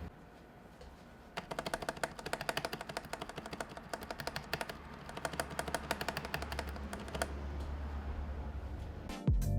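Typing on a Logitech G213 membrane keyboard freshly cleaned and lubricated with dielectric grease: a quick run of soft key presses for about six seconds. Music starts just before the end.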